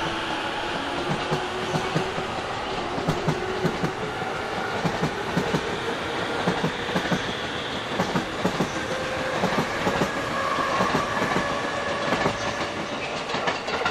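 JR East E231 series 800-number electric multiple unit pulling into a station, its wheels clicking in a steady rhythm over rail joints, with a faint whine in the second half.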